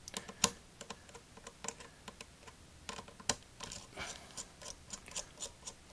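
Light, irregular clicks and taps of a small Phillips screwdriver and its screws against the laptop's plastic lid as the screws are backed out, with two sharper clicks about half a second and three seconds in.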